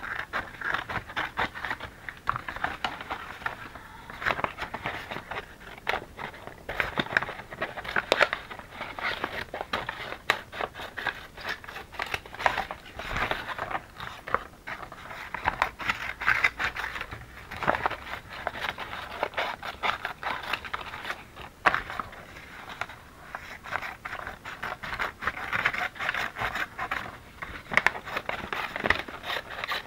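Brown kraft paper bag crinkling and rustling as it is handled and its edges trimmed, a dense, irregular run of crackles throughout.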